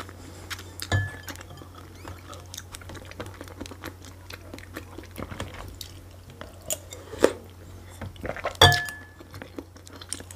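Eating sounds close to the microphone: metal cutlery clicking and scraping against a dish, with chewing. Two sharp ringing clinks stand out, about a second in and near the end.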